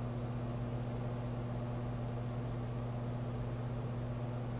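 Steady low electrical hum with a constant hiss, and a faint click about half a second in.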